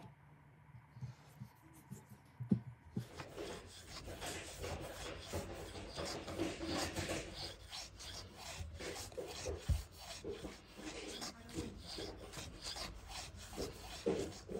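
A rag rubbing metal polish briskly back and forth around a journal of an LS1 crankshaft, a continuous scrubbing of quick repeated strokes that starts about three seconds in. This is the final polishing stage after wet-and-dry sanding.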